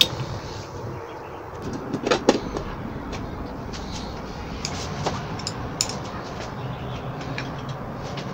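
Kitchen cooking sounds with aluminium mess tins: a steady hiss with scattered light clicks, and a few louder knocks about two seconds in.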